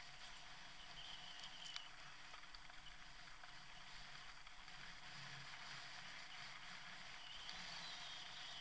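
Faint, steady rushing noise of a fat bike rolling down a dirt forest trail, with a couple of light clicks about a second and a half in.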